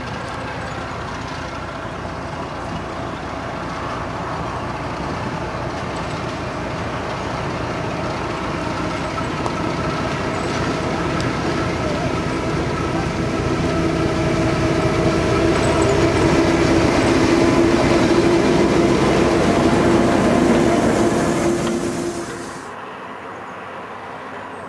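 Class 08 diesel shunter's engine running as it approaches hauling carriages, a steady drone growing louder. It cuts off abruptly about two seconds before the end, leaving only faint background.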